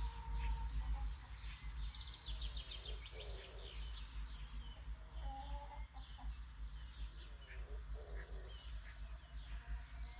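Several small birds chirping and calling, with a fast trill about three seconds in and a few lower calls later, over a steady low background rumble.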